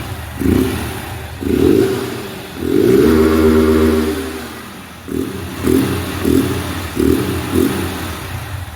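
Honda CG 160 Fan's single-cylinder engine, breathing through a newly fitted open sport air filter, being blipped on the throttle: a series of short revs, with one longer rev about three seconds in that rises and falls in pitch.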